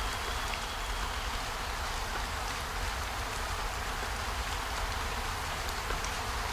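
Steady rain falling, a constant hiss scattered with tiny drop ticks, over a low rumble.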